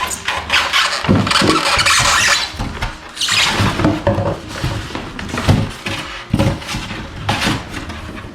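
Packaging handled during an unboxing: rustling and scraping in uneven bursts, with squeaks and a few low thumps.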